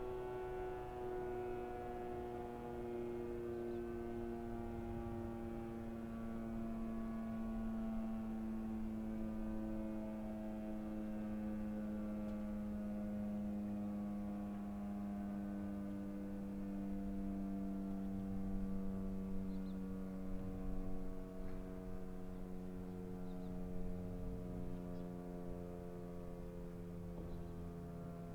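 Electric motor siren sounding the noon time signal as it winds down: one low, steady wail whose pitch sinks slowly and evenly throughout as the rotor slows.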